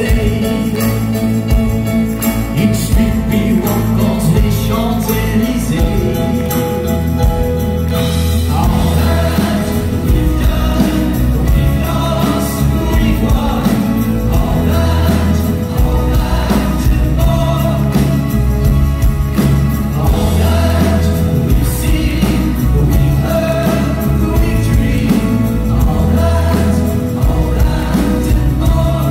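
Live band playing a slow pop-rock song with keyboards, bass and drums. A male lead voice sings over it from about eight seconds in.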